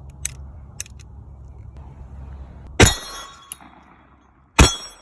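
Several sharp clicks and clinks of hard objects being handled, with two louder knocks about three seconds in and near the end, over a faint low rumble that fades out.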